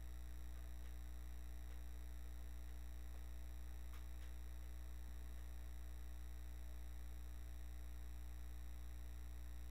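Steady low electrical mains hum with faint steady high-pitched tones above it. A faint click comes about four seconds in.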